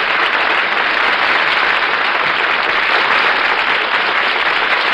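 Studio audience applauding steadily, heard on an old 1953 radio broadcast recording with the treble cut off.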